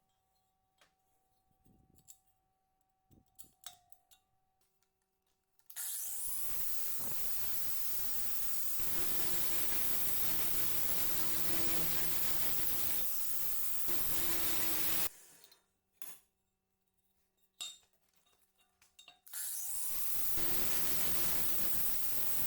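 A power tool runs in two long stretches, the first about nine seconds and the second starting near the end, with small clinks and taps of handled metal parts in the quiet between.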